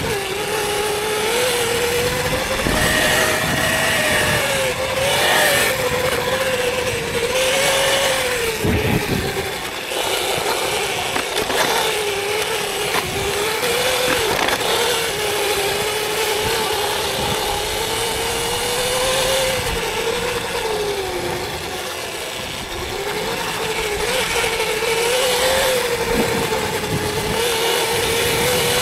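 Electric dirt bike's motor whining as it is ridden, the pitch rising and falling with the throttle, over a steady rush of wind and tyre noise.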